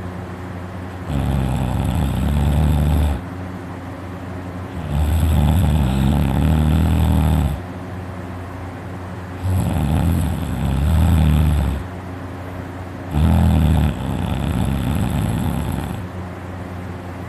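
A person snoring loudly: four long snores about four seconds apart, some of them in two parts. The snorer puts the sound down to his uvula vibrating.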